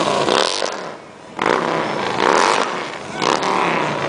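Motorcycle engines revving and riding past close by, loud, with pitch rising and falling between throttle blips. The sound drops away briefly about a second in, then comes back loud.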